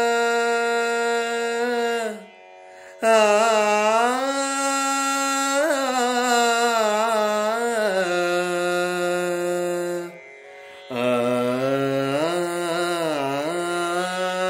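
A man singing in Hindustani classical style without words, an opening alaap before the song's lyrics: long held notes that slide and waver between pitches. The singing breaks off twice briefly, about two seconds in and again about ten seconds in.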